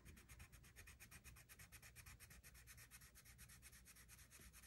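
Mondo Llama colored pencil being scribbled quickly back and forth on paper to fill a swatch, a faint, even scratching at about ten strokes a second.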